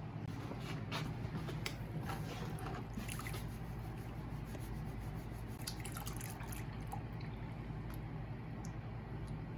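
Water sloshing and dripping in a gold pan as a batch of pay dirt is panned down, with scattered light clicks. A steady low hum runs underneath.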